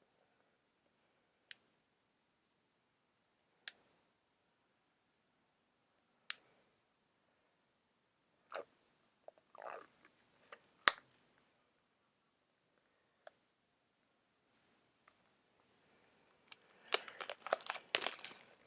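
Opening AirPods packaging by hand: single sharp clicks and snaps every few seconds, the loudest about eleven seconds in, between short bouts of rustling. Dense crinkling of packaging starts near the end.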